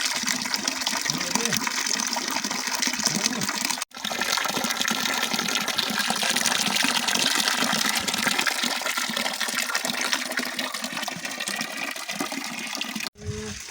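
Steady rushing of water, a loud even hiss that breaks off for an instant twice.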